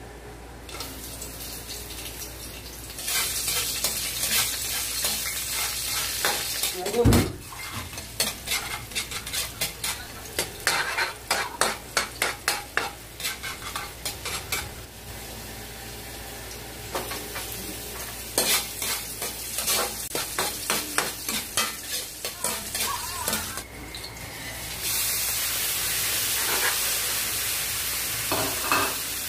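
Ground meat sizzling as it fries in a wok, with a metal ladle scraping and clanking against the pan in quick runs of strokes as it is stirred. One heavy thud about seven seconds in, and a steady sizzle near the end.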